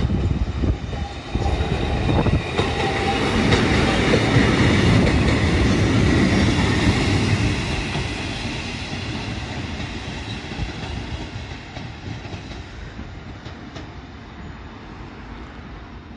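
Kotoden electric train running past, its wheels knocking over rail joints in a rapid patter. It is loudest about four to seven seconds in, then fades steadily as it moves away.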